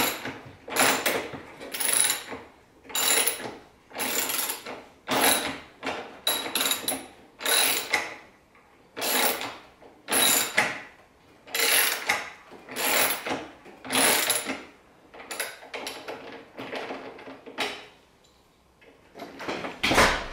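Hand ratchet wrench worked back and forth in strokes about once a second, each stroke a rasping run of pawl clicks, as bolts are backed out of the front counterweight on a Samsung front-load washer's tub. It pauses briefly near the end, then one more stroke.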